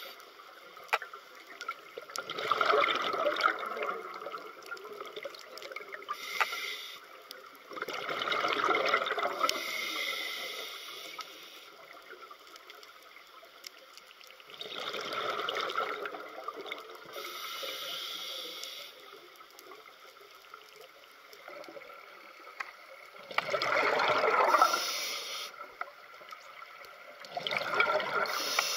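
Scuba diver breathing through a regulator underwater: five gushes of exhaled bubbles about six seconds apart, with a fainter hiss of each inhaled breath in between.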